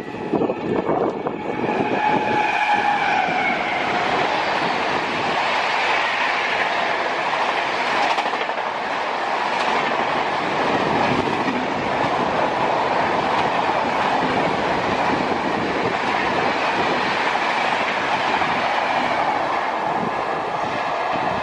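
Express passenger train passing at high speed close by: a steady, loud rush of wheels on rail with clickety-clack throughout. A short pitched tone sags slightly in pitch about two seconds in.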